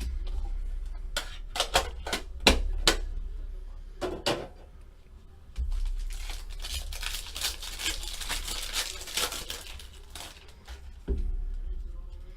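Trading card box packaging being handled and opened: a run of sharp clicks and taps in the first few seconds, then a stretch of crinkling and tearing of wrapping.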